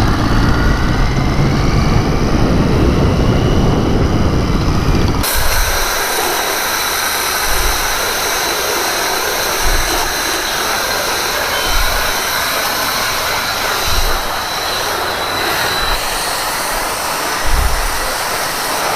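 Steady motorcycle riding noise, engine rumble mixed with wind rush on the microphone. About five seconds in it cuts abruptly to a thinner, steady hiss with a faint high whine.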